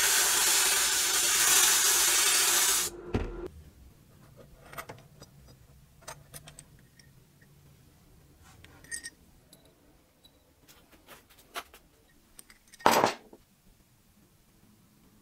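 Sandblasting gun in a blast cabinet hissing loudly as grit is blasted onto a small revolver part, cutting off abruptly about three seconds in. Then small metal parts click faintly as they are handled, with one short loud burst near the end.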